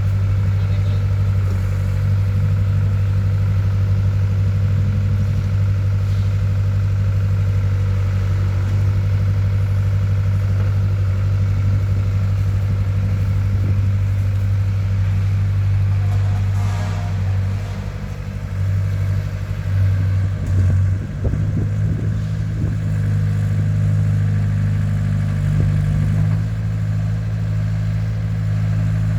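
Caterpillar E70B excavator's diesel engine running steadily with a deep hum. About two-thirds of the way through, the engine note dips and wavers for a few seconds, with a few short knocks, before settling again.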